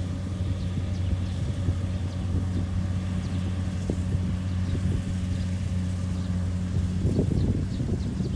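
Kubota DC70 rice combine harvester's engine running steadily under load, a low even hum, with a brief rougher clatter about seven seconds in.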